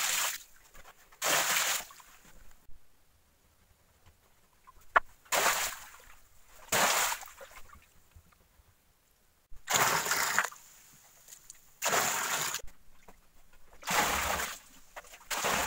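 Water poured from a pot gushing and splashing into a shallow pool of standing water, in about eight separate pours, each lasting under a second, with pauses between them. A single sharp knock about five seconds in.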